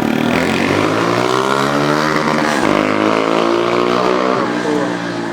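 A motor vehicle engine running close by, its pitch rising and falling as it revs.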